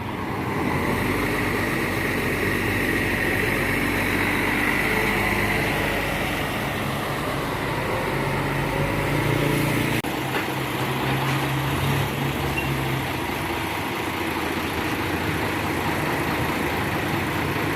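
Tour bus engine running, with traffic noise around it; the engine's note strengthens and holds steady from about eight to thirteen seconds in.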